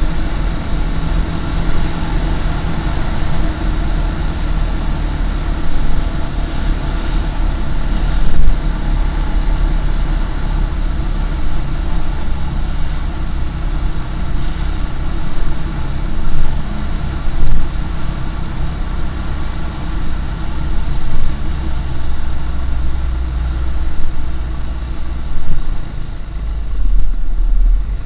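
Husqvarna SM510R supermoto's single-cylinder four-stroke engine running at a fairly even pace while riding, heard onboard the bike, with small swells in loudness.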